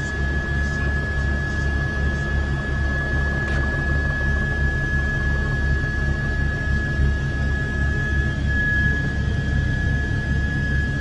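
Helicopter cabin noise: a steady, quickly pulsing low rotor and engine drone, with a thin steady high whine over it.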